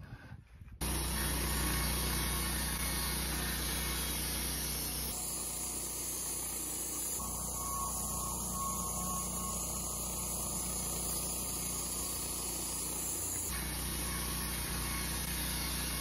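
Wood-Mizer LT15 band sawmill running steadily, its motor droning as the band blade saws through a Douglas fir cant. It starts abruptly about a second in, and its sound shifts slightly twice.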